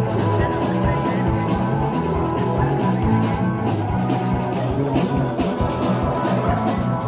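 Music with a steady drum beat under held instrument tones.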